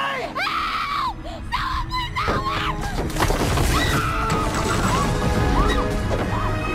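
Dramatic film score from an action scene, dense and sustained, with short rising-and-falling wails laid over it.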